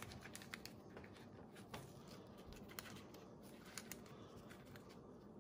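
Faint, scattered crinkles and ticks of a small plastic bag of filter papers being handled in rubber-gloved fingers.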